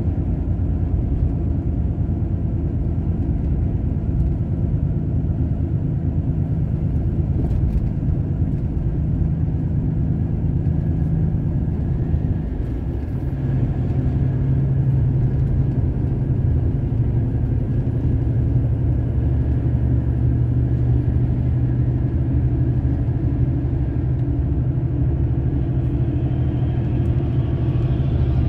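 Truck's diesel engine running under way with road rumble, heard from the cab. About halfway through the engine note dips briefly and comes back at a lower pitch.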